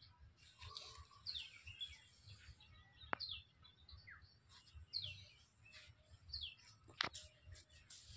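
Birds chirping, a short falling chirp repeated every second or so. Two sharp clicks come about three and seven seconds in.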